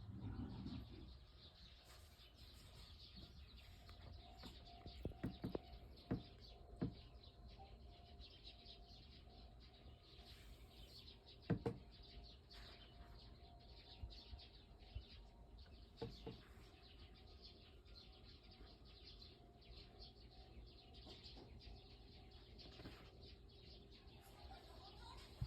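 Faint bird chirps, sparse and short, with a few sharper ones scattered through.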